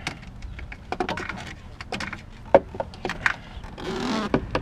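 Irregular clicks and knocks of a portable jump starter's clamps and cables being handled at a car battery, with one sharper knock about two and a half seconds in.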